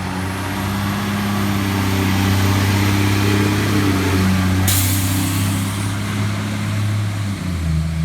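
Fire truck's diesel engine running steadily, with a short burst of air hiss about five seconds in, like air brakes releasing.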